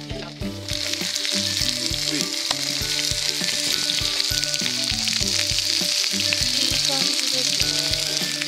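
Spice-rubbed chicken thighs frying hard in an iron frying pan over a campfire, a dense hissing sizzle that grows louder about a second in. Background music plays underneath.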